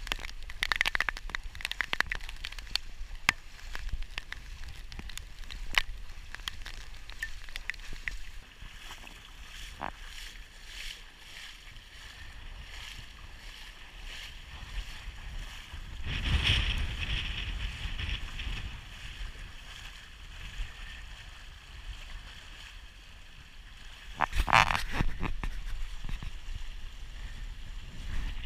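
Hurricane winds gusting across the microphone: a steady low rush and hiss with scattered clicks, swelling in two stronger gusts about halfway through and near the end.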